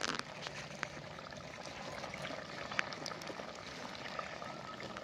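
A pot of mutton simmering over a wood fire: a steady, low bubbling hiss with scattered faint clicks and crackles, and a light knock right at the start.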